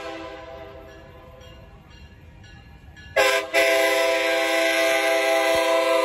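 Diesel locomotive's multi-chime air horn sounding for a road crossing. A blast ends just as it starts; after about three quieter seconds comes a short blast and then a long one that keeps going, the close of the grade-crossing warning as the train nears the crossing.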